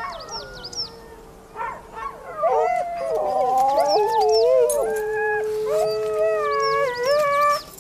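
Several huskies howling together: long overlapping howls at different pitches, some held and some sliding up and down, with quick high yips now and then. The sled dogs are restless and eager to get going.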